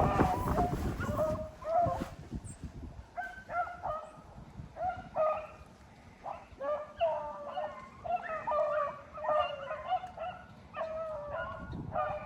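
Rabbit hounds baying while running a rabbit's track: a string of short, pitched bays from several dogs, overlapping at times. Wind buffets the microphone for the first second or so.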